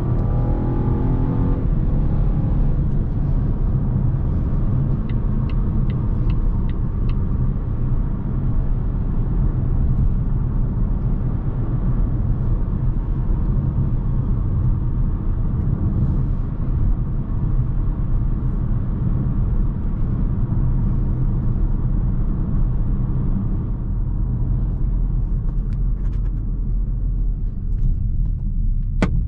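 In-cabin sound of a 2020 Volvo V60 T5 Cross Country driving: the 2.0-litre turbocharged four-cylinder's note rises briefly at the start, then settles into a steady low rumble of engine and road noise while cruising. A short run of light ticks about five seconds in and a few sharp clicks near the end.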